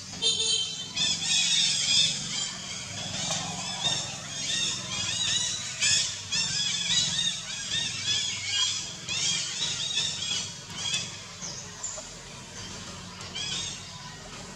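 Rapid high-pitched chirping animal calls, many short arching notes in quick succession, thinning out near the end, over a faint steady low hum.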